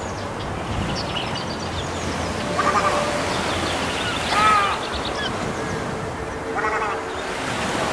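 Birds calling: four short nasal quacking calls spaced about two seconds apart, with faint high chirps between them, over a steady wash of surf.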